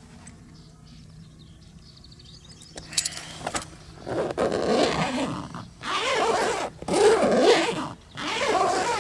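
Tent door zipper pulled back and forth four times, each pull a loud rasp of about a second, after a couple of light clicks about three seconds in. The slider has just been squeezed tighter with pliers so it no longer leaves a gap, and the zipping tests that repair.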